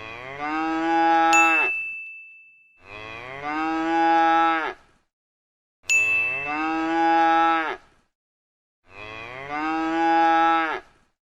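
A cow mooing four times, each moo about two seconds long and all four alike, as if one recording is repeated. A bell-like ding rings out twice, over the first and third moos.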